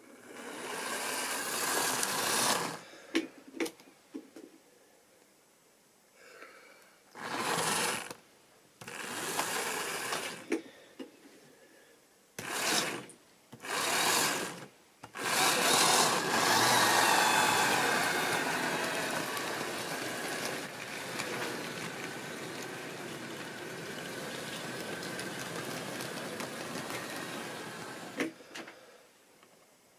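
Model railway diesel locomotive's small electric motor whirring, with wheels running over the track, in several short starts and stops and then a long run from about fifteen seconds in that slowly fades.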